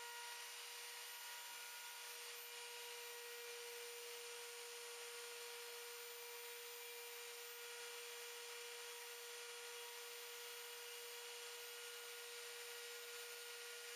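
A steady hum at one pitch with a hiss over it, unchanging throughout.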